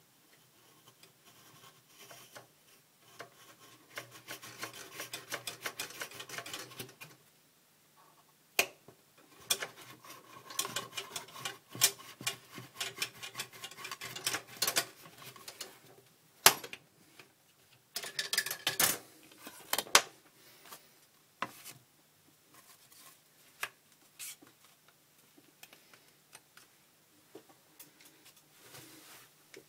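Hobby knife blade scraping along a 3 mm carbon fiber rod in spells of rapid, scratchy strokes, with a few sharp clicks between them.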